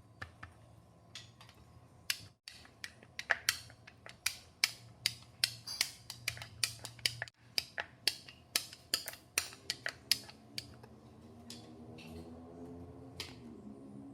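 A run of sharp clicks or taps, about two to three a second, that stops about ten and a half seconds in; a faint low pitched hum with several tones follows near the end.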